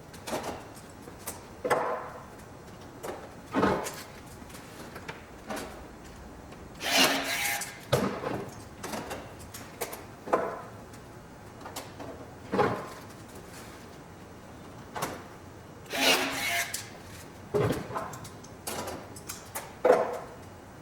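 Riveting work on an aluminium wing skin: irregular short clacks and scraping sounds of rivets being set and tools handled, with a few longer rasping bursts about 7 and 16 seconds in.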